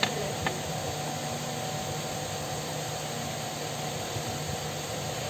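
Steady whirring hum of an electric pedestal fan running, with two light clicks about half a second apart near the start.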